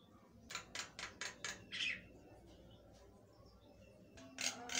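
Caged Javan myna (jalak kebo) calling in full song: a quick run of about five short, sharp notes about half a second in, then a slightly longer note, and after a pause another run of sharp notes near the end.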